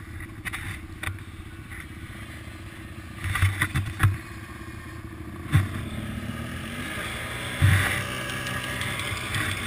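Quad's engine running steadily, with a few sharp low thumps about three and a half, five and a half and seven and a half seconds in.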